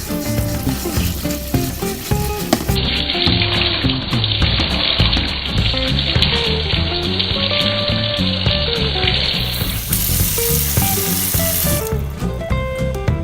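Background music with a dense, steady hiss running under it.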